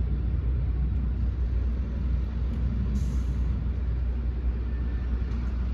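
Diesel engine of a Class 121 railcar running with a steady low rumble.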